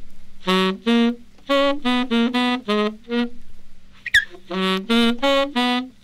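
Music from a 1960s flexi-disc record: a single wind instrument playing a tune of short, separate held notes in two phrases, with a brief click between them about four seconds in.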